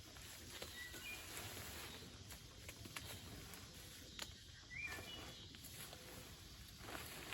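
Quiet woodland ambience: a few faint, brief bird chirps over a soft background hiss, with scattered sharp ticks or rustles.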